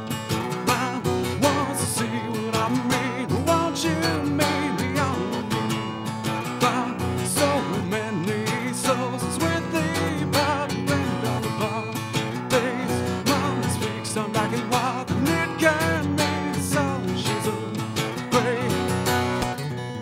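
A song played live on a strummed acoustic guitar, with a wavering sung melody over it at times.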